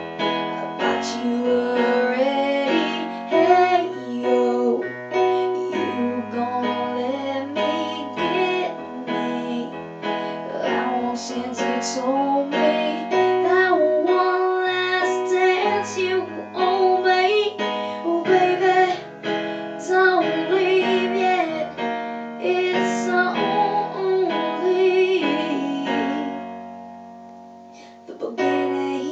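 A song performed on an electric keyboard with a piano sound, with a lead voice singing over the chords. Near the end a chord is held and fades away before the playing starts again.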